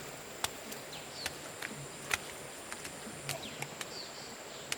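Outdoor ambience with a steady high insect-like whine, irregular sharp clicks, and a few short bird chirps.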